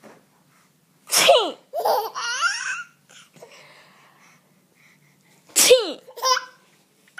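A woman sneezes twice, about a second in and again near six seconds, and a baby laughs in bubbly bursts right after each sneeze.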